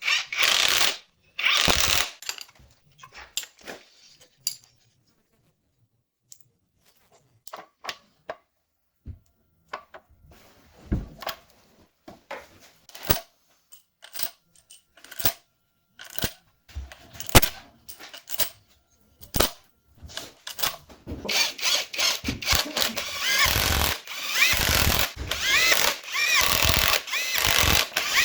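Mechanic's tools working on an engine being assembled: scattered sharp clicks and metal knocks with short pauses, then a denser stretch of power-tool noise through the last seven seconds or so.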